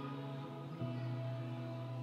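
Slow background music for the dance, made of long held notes; the low note steps down a little about a second in.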